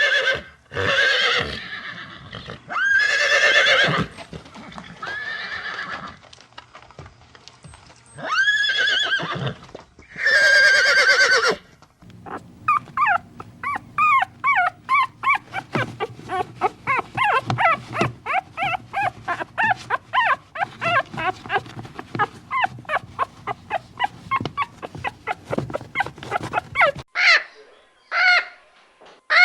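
Horse neighing and whinnying: several loud, wavering calls in the first half, followed by a long run of rapid short repeated calls, about three or four a second, from an animal.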